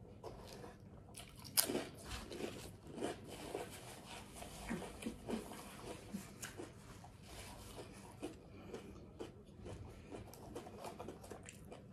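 Close-miked chewing of a mouthful of turkey sub with lettuce and mayo: a run of irregular small wet mouth clicks, some louder than others.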